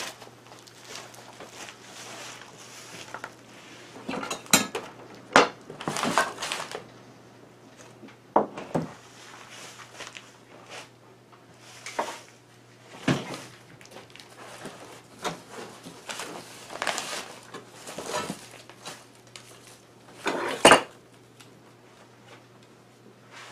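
Hand tools and metal objects being rummaged through and moved about while searching for a chisel: irregular clinks, knocks and rattles, loudest about five seconds in and again near the end, over a steady low hum.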